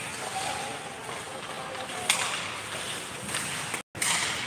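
Ice hockey play in a rink: a steady hiss of skates on the ice, a sharp crack of the puck about two seconds in, and the sound cutting out for a moment near the end.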